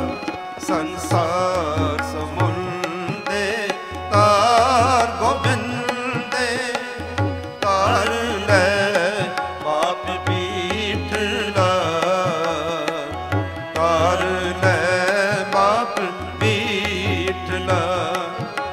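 Gurbani kirtan passage without words: tabla keeps a steady rhythm under a wavering, ornamented melody line.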